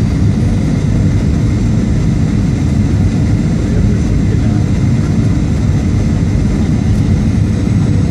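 Steady airliner cabin noise during the descent to landing: a constant engine and airflow rumble, heavy in the low end, with a fainter hiss above it, heard from inside the cabin.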